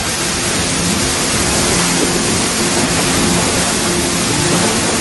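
Water cascading off a wooden mill waterwheel and splashing below, a steady rushing splash.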